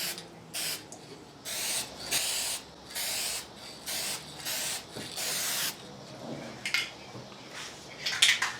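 Aerosol spray paint can (Dupli-Color Trim and Bumper Black) hissing in about seven short passes, laying a coat on a plastic trim panel. A quick run of clicking starts near the end.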